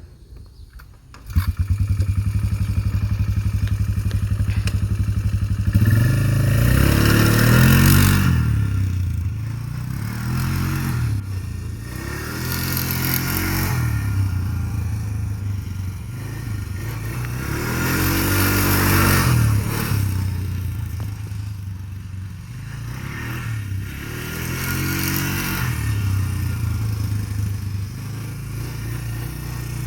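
A Polaris Trail Boss 325 ATV's single-cylinder four-stroke engine comes in about a second in and runs steadily. From about six seconds in it is revved up and eased off about five times as the ATV is test-driven with a new silent chain fitted in its transmission.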